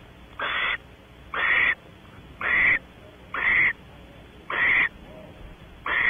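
Barn owl giving rasping, hissing snore calls, about one a second, each lasting under half a second.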